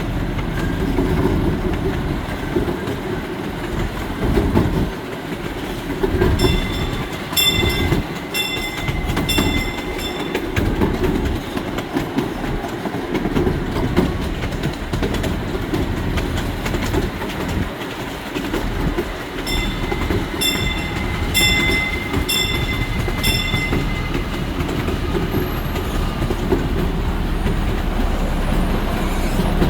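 Miniature park train running along its track: a steady rumble of wheels on the rails with clickety-clack. Twice a bell rings in quick strokes, about two a second, for a few seconds each time.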